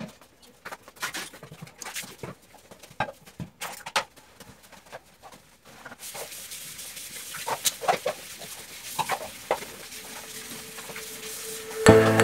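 Knocks and clicks of plastic bottles and items being picked up and set down on a bathroom sink. From about halfway a tap runs into the basin, with more clatter as things are washed. Background music comes in near the end.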